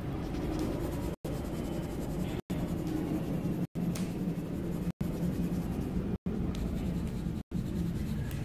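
Coloured pencil scratching back and forth on a paper card as an area is shaded in, cut by brief silent gaps about every second and a quarter.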